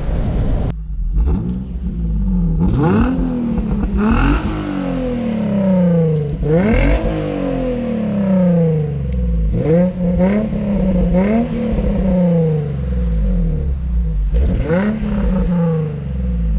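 Infiniti G35's 3.5-litre V6 being revved hard and repeatedly, the engine note climbing and dropping again every second or two, as in drifting.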